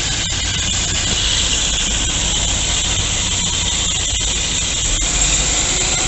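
A bus going by: steady engine rumble under loud tyre and road hiss.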